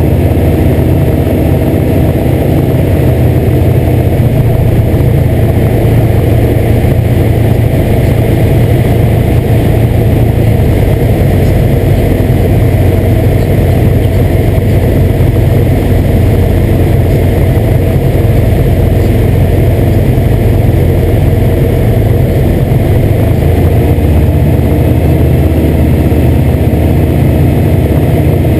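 Piston engine and propeller of a light single-engine aircraft in cruise flight, running loud and steady with no change in pitch, as heard inside the cockpit.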